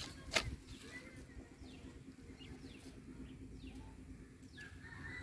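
Faint outdoor ambience with small birds chirping: short falling calls every second or so. There is a single sharp click just under half a second in.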